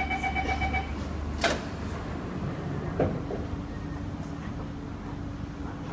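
SMRT C151A train door-closing chime beeping rapidly, stopping about a second in. The sliding doors then shut with a sharp knock, a second, smaller knock follows a moment later, and a steady low hum from the train sets in.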